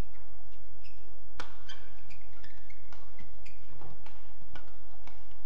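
Shuttlecock hit back and forth with rackets in a fast doubles badminton rally: a string of sharp hits a fraction of a second apart, the loudest about one and a half seconds in. Short high squeaks of court shoes on the mat come in between the hits.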